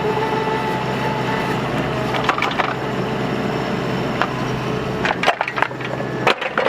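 Bobcat mini excavator running steadily while digging a trench, with a brief whine at the start and scattered cracks and knocks as the bucket breaks through soil and roots.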